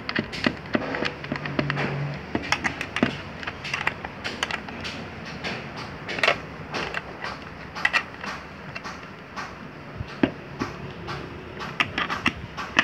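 Irregular clicks and knocks of a plastic motorcycle tail-light housing and its small screws being handled, turned over and set down on a counter.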